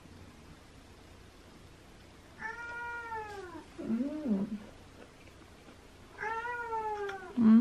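A cat meowing twice. Each long meow falls in pitch and ends in a shorter, lower sound, and the second meow, near the end, is louder.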